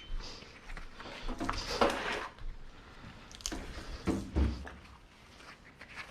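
Scrap electrical wire being handled and sorted: irregular rustling, scraping and clunks, with sharper knocks about two, three and a half, and four seconds in.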